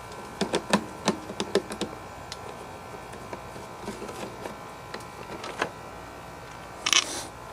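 Clicks and knocks of hand tools and metal and plastic parts being handled while a part is taken off a Briggs & Stratton lawn mower engine to reach the carburetor. A quick run of clicks comes in the first two seconds, sparser knocks follow, and a brief rasping burst comes near the end.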